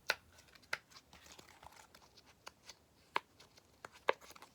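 Plastic fidget toys being handled: scattered light clicks with some crinkling, faint.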